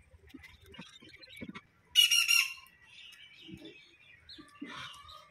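A bird's loud, harsh squawk about two seconds in, lasting about half a second. Faint clicks and mouth sounds of someone chewing come before and after it.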